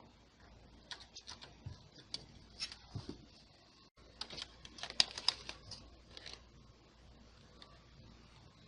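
A run of light clicks and taps, hands handling the server's parts and plugging in cables. They come in a loose cluster that is busiest about halfway through, then stop.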